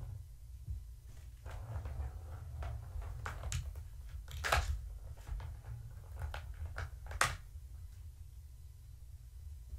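A kitten batting the ball around a Catit circular trackball toy: a run of irregular plastic clicks and knocks as the ball is swatted and rattles along the track. The two sharpest knocks come about halfway through and a few seconds later. Under them runs a steady low hum.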